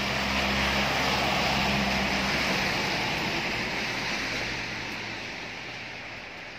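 A vehicle passing on the wet, snowy road: tyre hiss with a low engine hum, swelling about a second and a half in and then slowly fading away.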